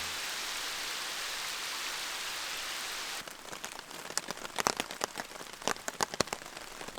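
Rain: a steady hiss at first, then from about three seconds in lighter rain with individual drops ticking irregularly on a surface close by.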